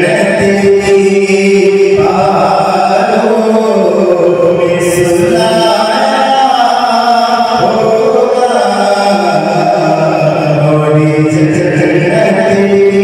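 A man chanting a slow, melodic recitation into a microphone, holding long notes that slide up and down between pitches, in phrases a few seconds long.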